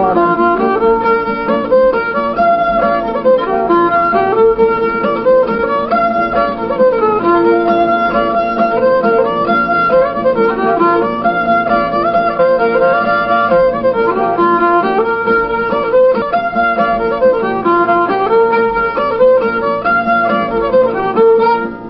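Old-time Anglo-American fiddle tune played on the fiddle, a quick run of bowed notes moving up and down, stopping abruptly at the very end.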